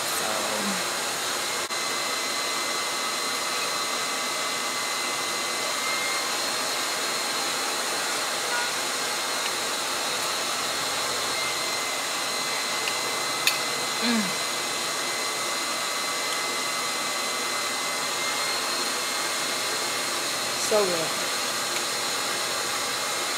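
Handheld blow dryer running steadily, with a thin high whine over its air noise, blowing into a towel wrapped around a wig to dry it.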